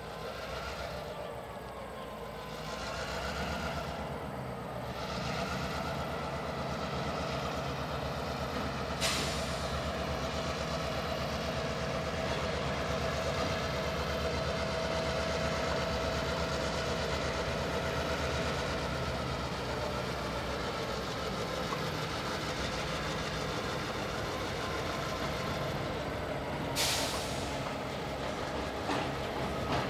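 Diesel locomotive of a CSX freight train running steadily as it approaches and rolls onto a steel railway bridge, growing louder over the first few seconds. Two short sharp hisses of air, about a third of the way in and near the end.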